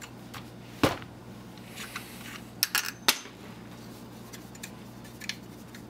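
Metal faucet parts clicking and clinking as they are handled and unscrewed by hand, with a few sharp knocks: the loudest about a second in, and a quick cluster near three seconds.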